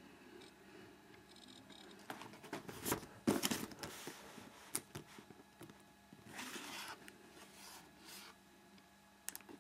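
A small cardboard camcorder box being handled and its lid opened: hands scraping and tapping on the cardboard, with a cluster of sharp scrapes and knocks about three seconds in and a softer rustle later.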